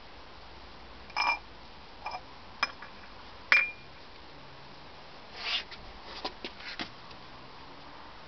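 Rubber squeaky dog toy squeaked four times in quick short squeezes, each on the same high pitch, the last held a little longer; then a brief rustle and a few light clicks.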